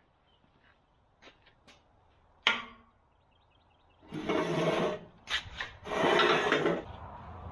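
A single knock, then two scraping, rubbing stretches of about a second each, as a heavy steel backhoe bucket is shifted into place by hand.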